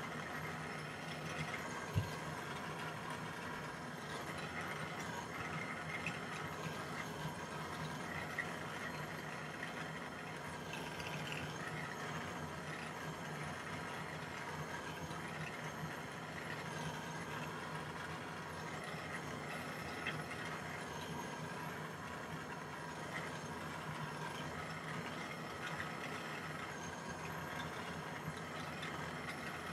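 Jeweller's soldering torch burning steadily with a continuous rush and faint steady tones as it heats a silver piece for pick soldering. A single sharp tick about two seconds in.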